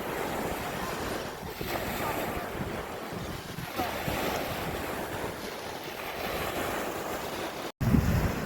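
Sea waves washing onto the shore, with wind buffeting the microphone. A momentary dropout near the end is followed by louder wind rumble.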